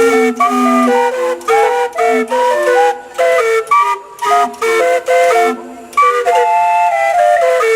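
Steam-blown whistles playing a fast carousel-style tune: loud, shrill notes stepping up and down, often several sounding together, over a rushing steam hiss, with brief breaks between phrases.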